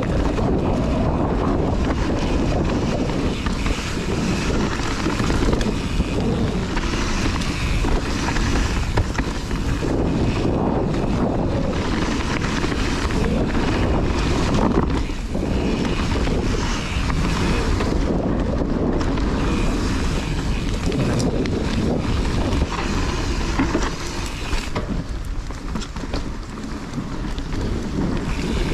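Wind buffeting a body-mounted action camera's microphone while riding a Kona Process 153 mountain bike down a trail, with the tyres rumbling over rough ground and the bike rattling and knocking over bumps.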